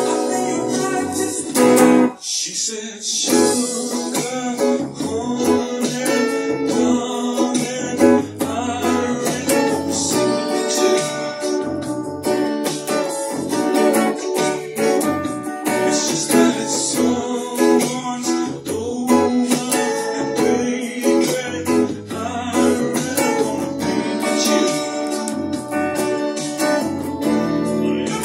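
A Telecaster-style electric guitar is played in an ongoing song, with singing over the music.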